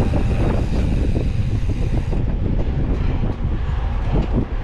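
Mountain bike riding a trail, heard from an onboard camera: wind buffeting the microphone over steady tyre rumble, with many small knocks and rattles from the bike.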